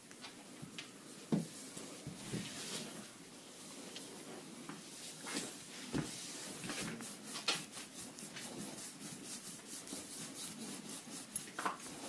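Hands rubbing and stroking bare skin in a back massage, with a couple of soft knocks in the first half. In the second half the rubbing becomes quick and even, about four strokes a second.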